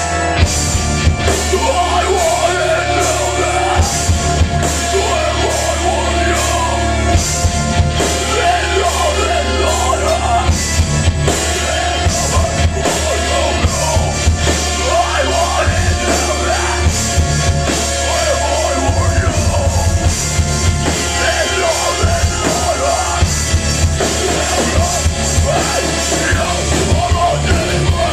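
Live rock band playing loudly: distorted electric guitars, bass guitar and drum kit.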